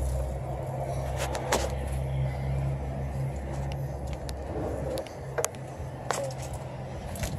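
A vehicle engine hums low and steady, dropping away about five seconds in, with scattered sharp clicks and knocks over it.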